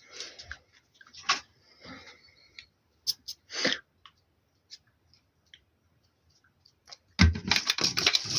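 Handling noises: scattered clicks and short rustles, then a louder stretch of crackling, crumpling rustle starting about seven seconds in.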